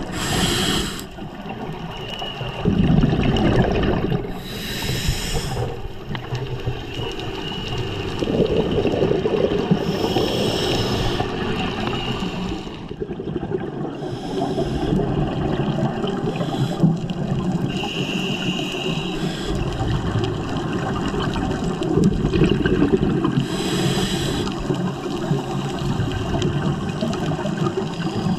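A scuba diver breathing through a regulator underwater. Each inhale comes as a short hiss, about every four to five seconds, and between them there is a low, bubbling rumble of exhaled air.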